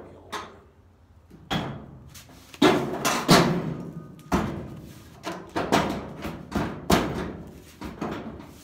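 A series of heavy knocks and thumps on steel truck body panels, about ten of them at irregular spacing, each ringing out briefly, as the roll pan is worked into place against the pickup's bed.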